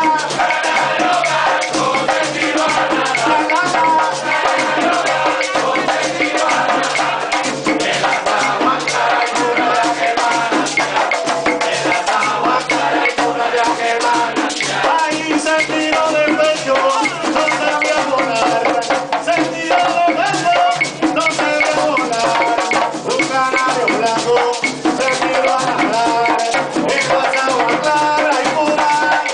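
Live Puerto Rican plena: several panderetas (hand-struck frame drums) beating a fast, steady rhythm with a güiro scraping along, under a lead singer and a group of voices singing the chorus.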